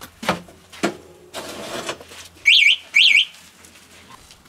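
A bird gives two short, loud chirps about half a second apart, each sweeping up, down and up again in pitch. They are preceded by a couple of knocks and a brief rustle from sacks of corn being loaded into a car's rear hatch.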